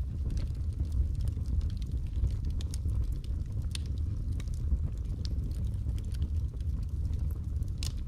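Wood logs burning in an open fireplace: a steady low rumble of flame with scattered sharp crackles and pops, one louder pop near the end.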